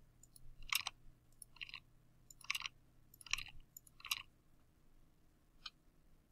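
Faint computer keyboard and mouse clicks, coming in five quick clusters about a second apart and then one more single click, as text is pasted into one table cell after another.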